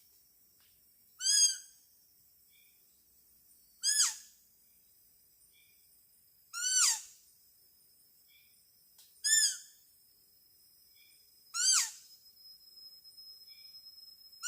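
Homemade hunter's deer call blown in short, high, squealing cries that fall in pitch. There are five of them, about two and a half seconds apart, with a sixth starting at the end.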